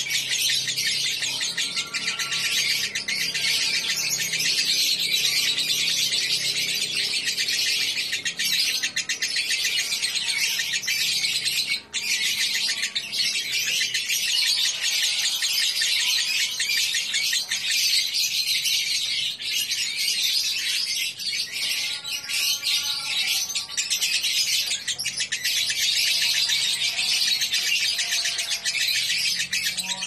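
Fischer's lovebird chattering in one long, unbroken high-pitched stream, the drawn-out 'ngekek' song that lovebirds are kept and judged for in Indonesian contests, with one brief break about twelve seconds in.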